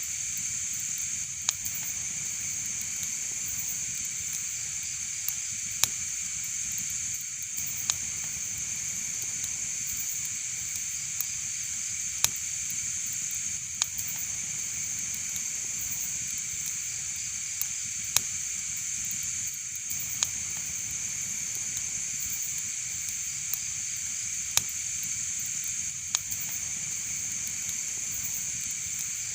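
Wood fire burning in a fireplace: a steady hiss with sharp crackling pops every few seconds.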